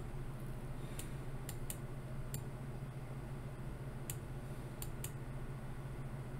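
Computer mouse clicking, about seven short sharp clicks at irregular spacing, over a steady low hum.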